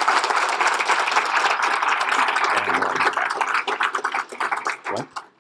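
Audience applauding: dense clapping that thins to a few scattered claps and stops about five seconds in.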